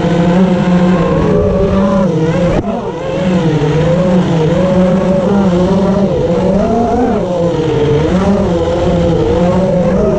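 Electric skateboard's dual motors whining as it rides along, the whine rising and falling with speed, over the rumble of wheels rolling on asphalt. The sound breaks off briefly about two and a half seconds in.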